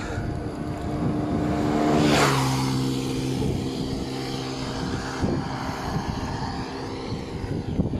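A motor vehicle passing close by on the road, its engine hum dropping in pitch as it goes past about two seconds in.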